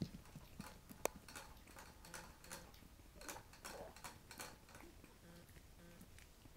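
Faint, irregular clicking of puppy claws on a tile floor, with one sharper click about a second in.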